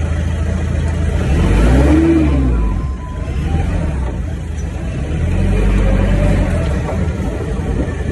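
Forklift engine heard from inside the cab, revving up and back down twice while the hydraulic control levers are worked: a short rise and fall about two seconds in, and a longer one between about five and seven seconds.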